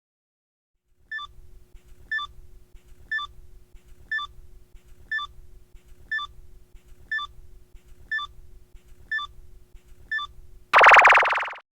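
Quiz countdown timer: ten short electronic beeps, one a second, over a low steady hum, ending in a short loud burst near the end.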